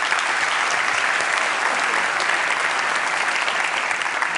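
Audience applauding, a dense steady clapping that builds just before and dies away just after.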